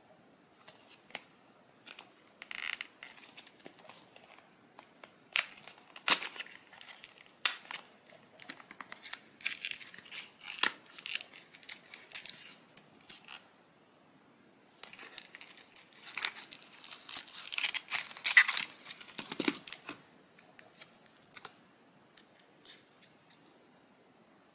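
Cardboard box and wrapper of ZINK photo paper being opened by hand: tearing and crinkling in several bouts, with sharp taps and clicks, quieter for the last few seconds.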